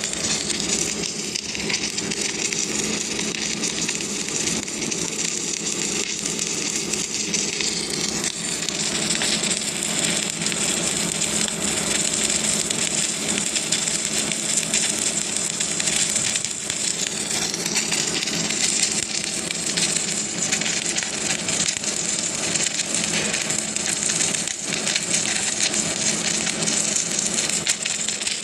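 Automatic arc welder laying a test weld after repair: the arc gives a steady crackling sizzle, over a steady low hum.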